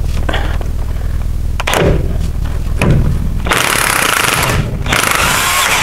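Impact wrench hammering at the lower mounting nut of a shock absorber to undo it, in two rattling bursts of about a second each in the second half, after a few knocks.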